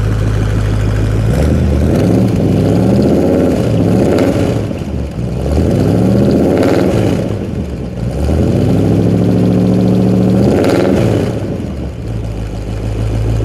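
1956 Mercury's factory Y-block V8 idling, then revved three times, each rev rising in pitch and falling back, and settling to an even idle near the end.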